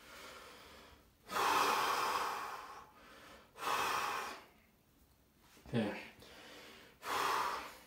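A man breathing hard through his mouth while holding flexing poses: three long, noisy breaths, the first the longest, with a brief vocal grunt between the second and third. It is the breathing of someone winded and lightheaded from exertion.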